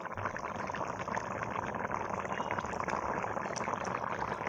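Bottle gourd curry bubbling and simmering in a karai, a steady fine bubbling crackle as the thin gravy boils down.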